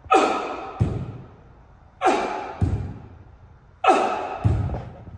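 Three dumbbell jump squats: each a sharp, forceful exhale as he springs up, then the deep thud of his bare feet landing about half a second later.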